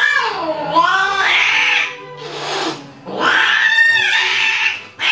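Domestic cats mating: two long, wavering yowls, with a short noisy burst between them.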